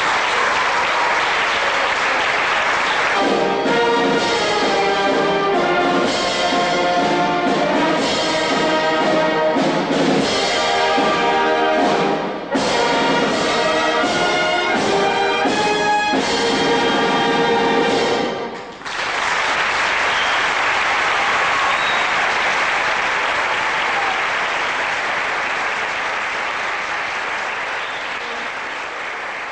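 Applause, then a wind band of brass and woodwinds plays a short passage of held chords for about fifteen seconds, with brief breaks, and stops on a final chord. Applause follows and slowly fades out.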